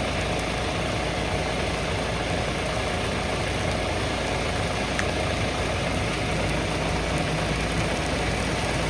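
JCB 3DX Plus backhoe loader's diesel engine idling steadily, with a single click about five seconds in.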